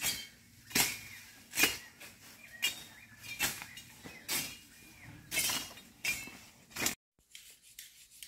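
Hand-swung blade chopping through weeds and brush, one sharp swishing stroke a little under every second. The strokes stop abruptly about seven seconds in.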